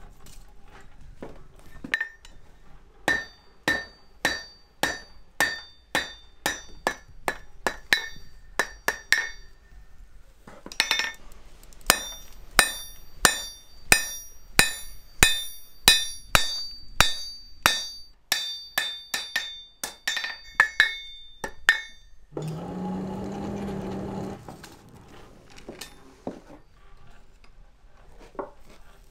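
Hand hammer striking hot mild steel bar on an anvil: a steady run of sharp blows, about two a second, each with a bright anvil ring, as the bar's end is drawn out to a taper. About three-quarters through, the hammering stops for a couple of seconds of low humming noise, then lighter strikes follow.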